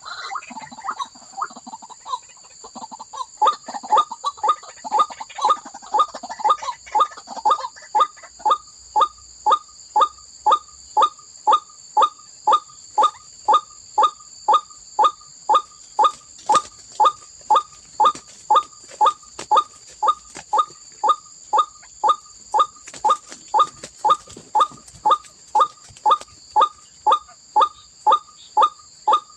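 White-breasted waterhen calling over and over: short falling notes about one and a half to two a second, ragged and overlapping for the first few seconds, then very even. A steady high buzz runs beneath.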